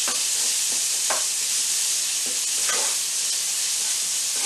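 Sliced onions sizzling in very hot, almost smoking oil in a frying pan, with a steady hiss, and a few brief scrapes as they are stirred with a wooden spoon.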